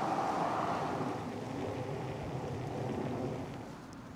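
Road traffic: a car going by on tarmac, its tyre noise fading after about a second, then a fainter hum of traffic that drops away near the end.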